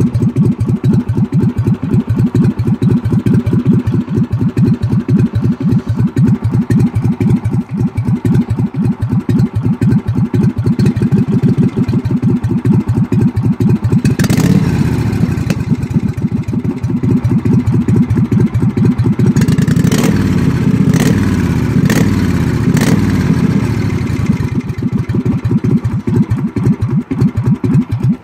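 Kohler engine of a Craftsman riding mower running at a very low idle, each firing pulse distinct and loping. About halfway through it runs faster and smoother for several seconds, with several sharp pops, then drops back to the slow low idle.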